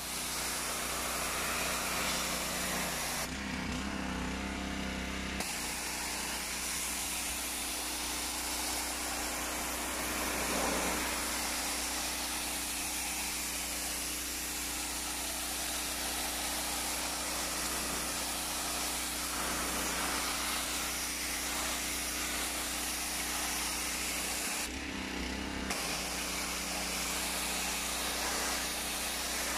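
Ferrex petrol high-pressure washer: its small petrol engine runs steadily under the hiss of the water jet from the fan nozzle striking pebble-finish concrete steps. The hiss eases twice, for about two seconds a few seconds in and for about a second near the end, leaving the engine note more prominent.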